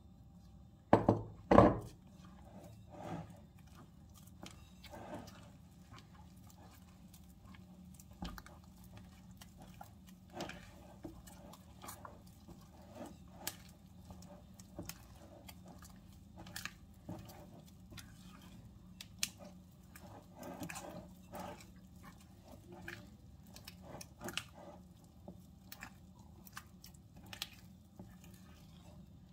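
Kitchen work sounds: scattered taps, clicks and soft knocks of utensils and food being handled, with two loud knocks in the first two seconds, over a faint low hum.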